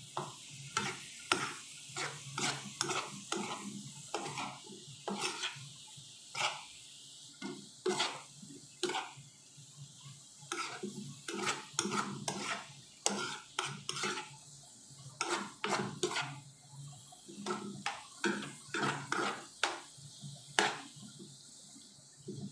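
Metal spoon scraping and knocking against a non-stick frying pan in quick, irregular strokes while stir-frying chayote and egg, with a steady sizzle from the pan underneath.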